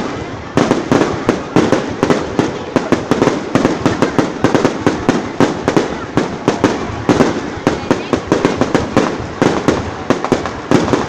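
Aerial fireworks display: a dense, unbroken barrage of sharp bangs, several a second.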